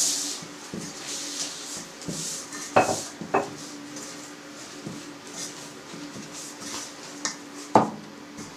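Bread dough being kneaded by hand in a metal bowl: soft rubbing and squishing of the dough, with the bowl clanking sharply twice about three seconds in and once near the end. A faint steady hum runs underneath.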